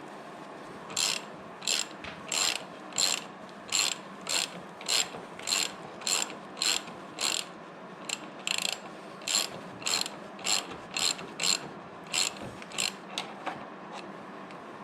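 Socket ratchet clicking in short, regular bursts, about one and a half a second, as the handle is swung back and forth to unscrew a motorcycle's front axle with a 24 mm hex socket. The bursts start about a second in and stop shortly before the end.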